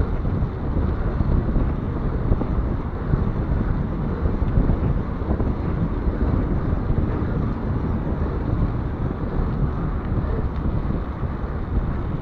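Wind buffeting the microphone while riding a mountain bike along a paved road, a steady low rumbling rush.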